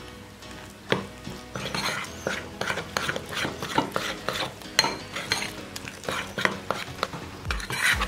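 Metal spoon stirring a thick yogurt-and-spice marinade in a bowl: wet mixing with irregular clinks and scrapes of the spoon against the bowl's side.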